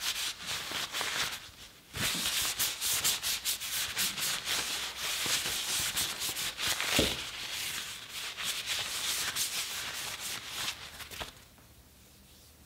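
Paper towel rubbing over a wooden knife handle, wiping off excess mineral oil. The rubbing pauses briefly near two seconds in, has two light knocks, and stops about eleven seconds in.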